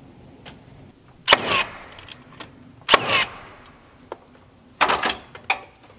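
Nail gun firing into wooden strips fastened over a cabin wall. It gives sharp shots about a second and a half apart, then a quick cluster of several near the end, each trailing off briefly.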